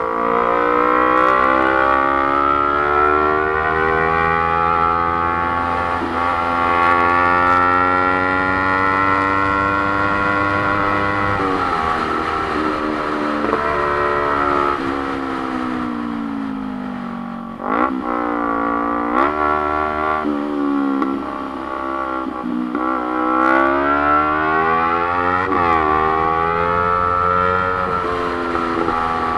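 Motorcycle engine heard from the riding bike, under way: the engine note climbs slowly for about ten seconds, drops as the revs fall, gives a quick rev up and down around the middle, then climbs again and eases off near the end.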